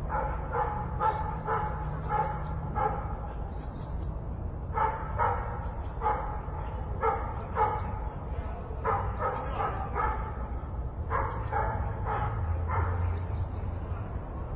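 A dog barking in runs of four to six barks, about two a second, with short pauses between the runs, over the steady low rumble of a city park background.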